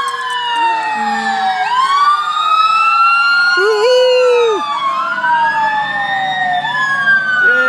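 Several fire-truck sirens wailing at once, their pitches rising and falling slowly and overlapping. A short horn blast sounds about halfway through.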